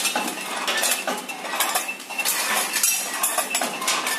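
Multihead weigher running: a continuous, irregular clatter of foil-wrapped candies clinking through its metal feed pans and hoppers as the weigh hoppers open and drop them, counting one piece per discharge.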